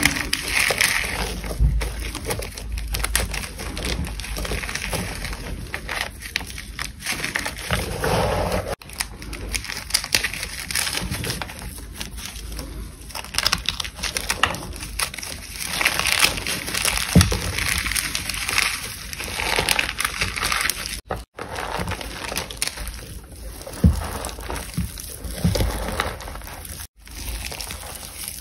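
Reformed gym chalk chunks crushed and squeezed by hand in water: continuous wet crunching and crackling, with brief gaps about a third of the way in, three quarters of the way in and near the end.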